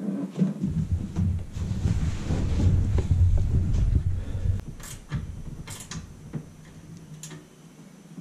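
Handling noise of someone moving about in a boat and sitting down in its seat: low rumbling thuds for about four seconds, then a few sharp clicks of small hardware being handled.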